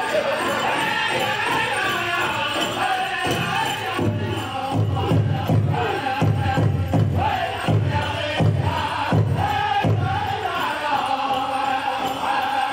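Powwow drum group singing a chicken dance song in high, wavering voices. About four seconds in, the big drum comes in with strong, evenly spaced beats, and it drops out near the ten-second mark while the singing carries on.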